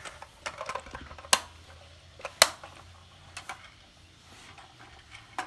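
Plastic LEGO Duplo toy pieces being handled, giving a handful of sharp clicks and taps, the loudest about two and a half seconds in.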